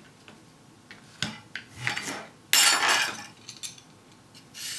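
Kitchen knife trimming a cucumber on a plastic cutting board: a few light knocks of the blade on the board, then a louder, sudden clatter of utensils about two and a half seconds in as the knife is put down and a vegetable peeler picked up.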